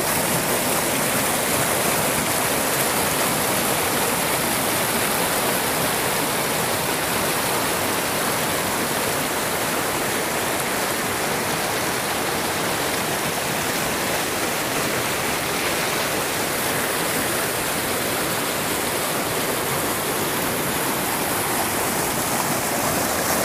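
Fast river water rushing over rocks in rapids, a steady loud rush with no change.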